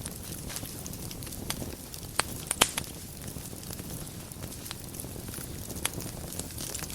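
Wood fire burning in a fireplace: a steady low rumble with irregular crackles and a few sharper pops, the loudest about two and a half seconds in.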